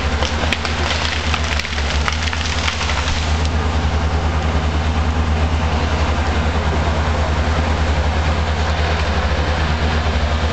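Logset 8H forest harvester's diesel engine running steadily under load, with a burst of wood cracking and snapping during the first three seconds or so.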